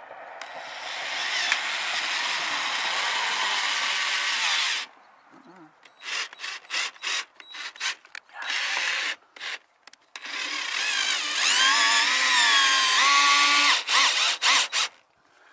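Cordless drill working against a steel roof panel. It runs steadily for about four seconds, then in a string of short trigger pulses, then in a second long run whose motor pitch rises and falls, and ends in a few quick pulses.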